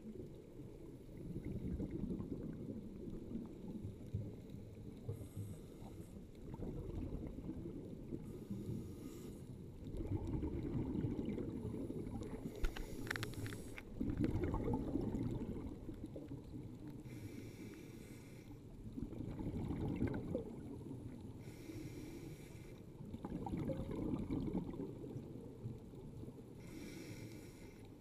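Scuba diver breathing through a regulator underwater: a short hiss on each inhale, about every four to five seconds, between long bubbling rumbles of exhaled air.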